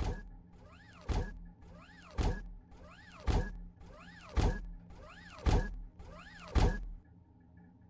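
A mechanical sound effect repeated seven times, about once a second: a short motor whir that rises and then falls in pitch, ending each time in a heavy thunk, over a steady low hum.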